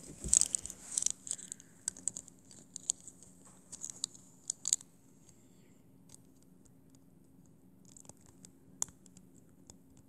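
Small plastic clicks and scrapes as hands fit a Mega Construx figure into its plastic crate. The clicks are busy for the first five seconds, then come only now and then.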